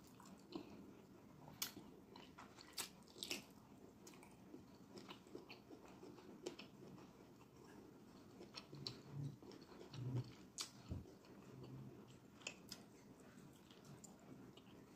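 Close mouth sounds of someone eating fufu and egusi soup by hand: wet chewing and lip smacks with scattered sharp clicks, faint.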